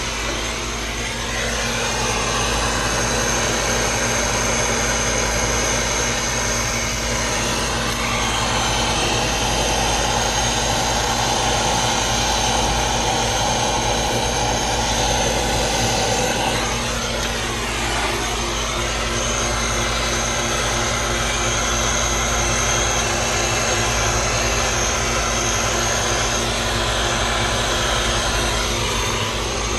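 A machine running with a steady drone, a low hum under a broad hiss, its tone shifting slowly a little past halfway and again near the end.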